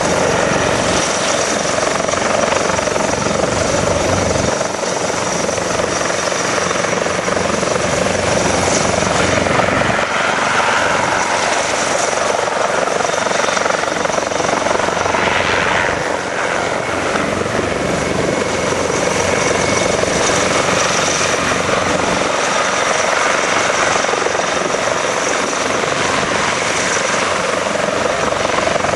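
Helicopter in flight: loud, continuous rotor and turbine noise with slight swells.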